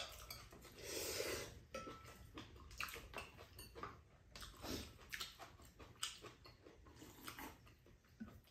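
Eating sounds: noodles slurped and chewed, with scattered light clicks of chopsticks against bowls.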